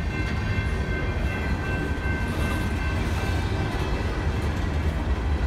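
Empty coal hopper cars rolling past, a steady low rumble of wheels on the rails.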